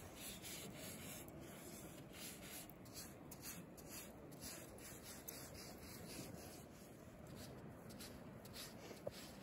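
A greyhound digging in beach sand with her front paws: a quick, steady run of faint scraping strokes.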